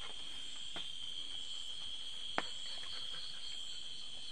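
Night insects chirring steadily in one continuous high-pitched drone. A single sharp click cuts through about two and a half seconds in.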